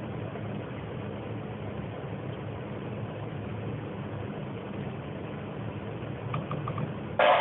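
A metal spoon stirring a pot of meat in tomato sauce over a steady low hum, with light clinks about six seconds in and one louder clank against the pot near the end.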